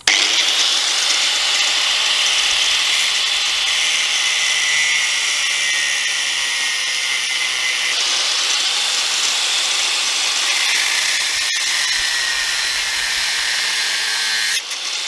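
Corded angle grinder with a cut-off disc running at speed and cutting through a rusty steel alternator-mount bracket. Its high whine starts suddenly and holds steady, then sinks in pitch over the last few seconds as the disc bites into the steel under load.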